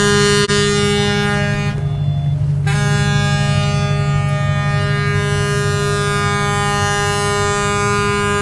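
Ship horns blowing long, steady blasts, several pitches sounding together, briefly muffled about two seconds in.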